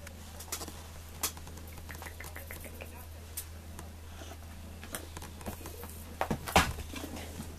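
A cat batting a small ball toy around a concrete floor: scattered light taps and rattles, with a loud knock and thump about six and a half seconds in as the toy is knocked away, over a steady low hum.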